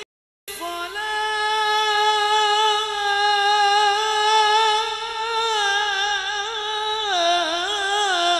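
Male solo voice singing sholawat into a microphone, holding one long high note steady for several seconds, then ornamenting it with a wavering melisma near the end. The sound cuts out for about half a second at the very start.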